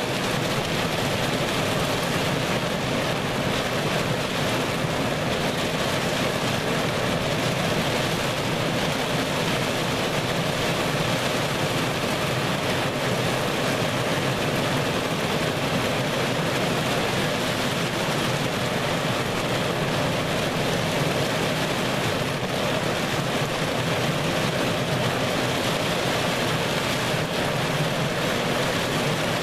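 Heavy wind-driven rain pelting a car during a thunderstorm, heard from inside the cabin as a steady, even rush of noise with the gale behind it.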